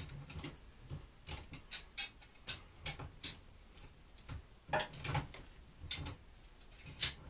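Gas welding on a steel radiator pipe fitting: irregular sharp crackles and ticks, about a dozen scattered through, over a faint background.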